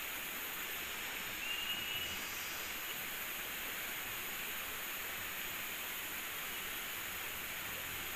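Steady high hiss of jungle ambience, with a short, thin high whistle about a second and a half in.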